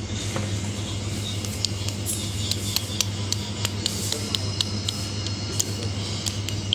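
A steady low hum with many light, sharp clicks and ticks scattered over it.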